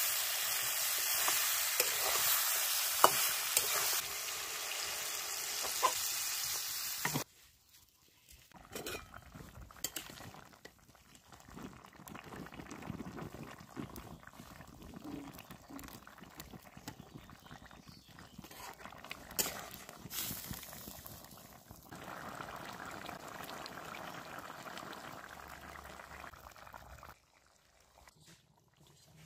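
Pork and radish frying in a metal wok, sizzling loudly, with a metal spatula scraping and clinking against the pan. About seven seconds in the sizzle cuts off suddenly, leaving quieter bubbling of the curry in its broth with occasional clinks of the ladle.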